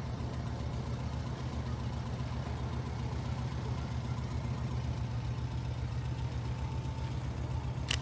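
Turbocharged Subaru BH5's engine running steadily at an even, low engine speed, a constant low hum with no revving.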